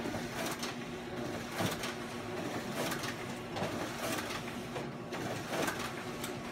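Office multifunction copier running a copy job: a steady motor hum with a repeated swish-click of sheets feeding through, roughly twice a second.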